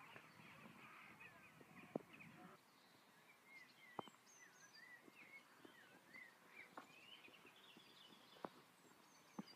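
Faint birdsong: small birds chirping and twittering in quick, rising and falling notes, with a few soft clicks at intervals.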